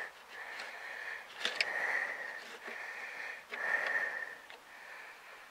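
A man breathing through his nose close to the microphone, a hissy breath swelling and fading about once a second, with a couple of faint clicks.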